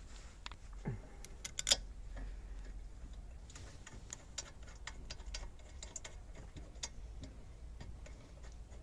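Scattered light metallic clicks and taps as a rear brake caliper and its pads are worked into place by hand, the loudest about two seconds in.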